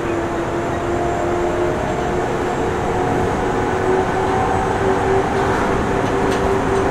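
Nagoya Municipal Subway 3000 series chopper-controlled train running, heard from inside the car: steady rumble of wheels on the rails with a humming drive tone that steps slightly up in pitch a few seconds in.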